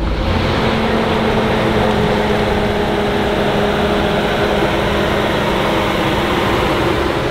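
A vehicle engine running steadily: an even hum and rush with a few faint steady tones and no change in level.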